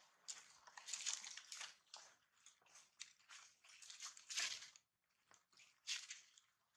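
Dry leaf litter crunching and rustling in irregular bursts as a young monkey moves over it close to the microphone, thinning out after about five seconds.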